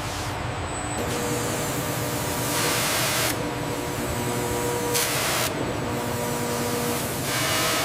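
Steady industrial machinery noise with a faint hum. Bursts of hissing, like spray or released air, come three times: about two and a half seconds in, at about five seconds, and near the end.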